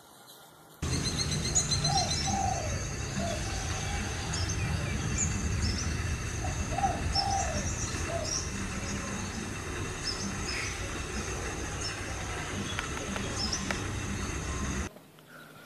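Several birds chirping, with two short runs of lower cooing calls, over a steady low rumble of outdoor background noise. The sound starts abruptly about a second in and cuts off near the end.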